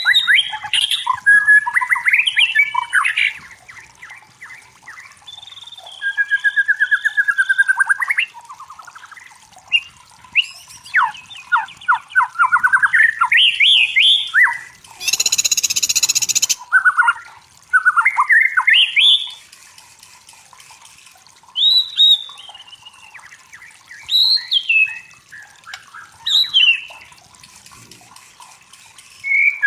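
White-rumped shama (murai batu) singing a varied song of clear whistles, gliding notes and rapid trills in quick succession, with a harsh, noisy burst lasting about a second and a half about halfway through.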